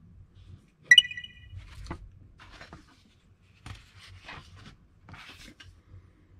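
Styrene-board sheets with pasted paper prints being picked up and handled over a cutting mat, in several short rustles and scrapes. About a second in, a small hard object is set down with a sharp clink that rings briefly.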